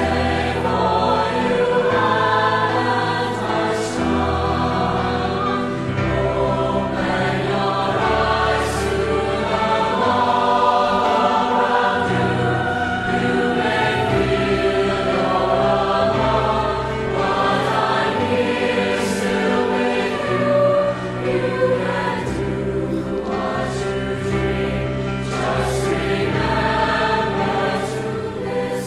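Choral music: a choir singing over low notes held for a few seconds each.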